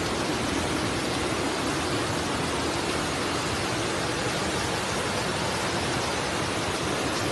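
Floodwater rushing through a street in heavy rain: a steady, unbroken wash of water noise.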